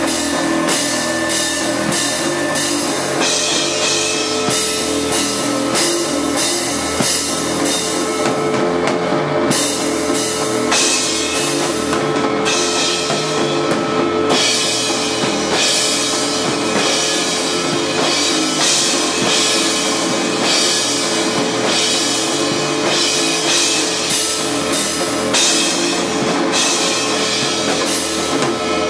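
Loud rock jam: a drum kit played hard with frequent cymbal crashes, under distorted electric guitars. A steady held tone drones beneath.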